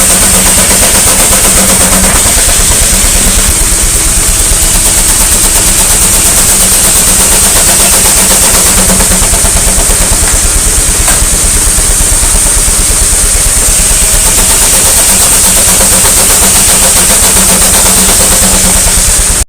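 Steam engine running steadily, with rapid even exhaust beats and a constant hiss of steam.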